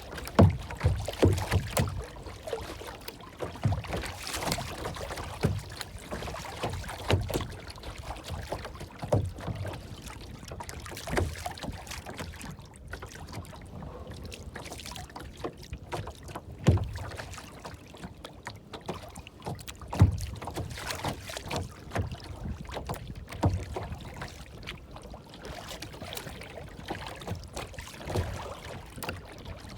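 Water lapping and splashing, with irregular soft knocks and low thumps over a steady rushing haze.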